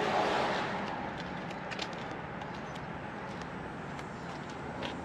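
Steady outdoor vehicle noise, loudest in the first second and easing off a little, with a few faint clicks.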